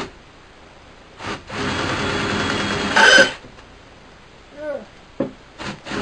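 Cordless drill bit grinding into a thin steel plate for about a second and a half, ending in a brief high squeal before it stops. Short on-off bursts of the drill follow near the end, its battery going dead.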